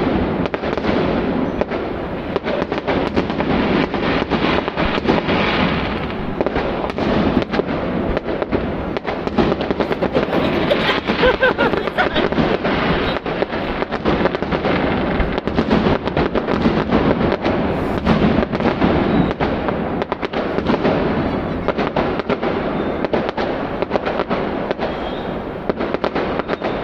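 Fireworks going off in a dense, continuous barrage: rapid, crackling pops with no pause.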